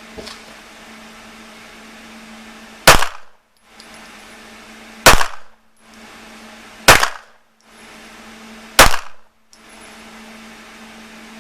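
Four handgun shots fired about two seconds apart, each sharp report followed by a short echo.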